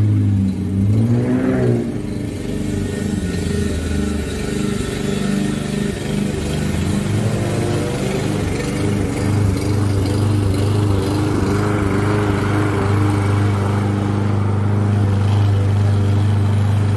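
Petrol walk-behind push lawn mower running steadily as it cuts grass, its engine pitch swinging down and up over the first couple of seconds before settling.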